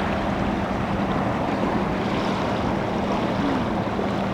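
Steady wash of wind and water around a sailboat, with a low steady hum underneath.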